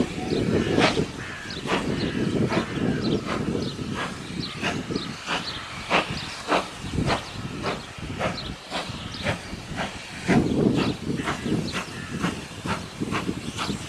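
Steam locomotive working a train, its exhaust chuffing in an even beat of a little under two a second over a low rumble that swells twice.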